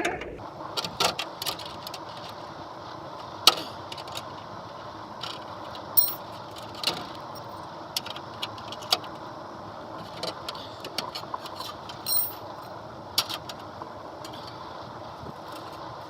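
Scattered metallic clinks and knocks of a wrench working the bolts of a car's front bumper, at irregular intervals, the sharpest about 3.5, 6, 12 and 13 seconds in.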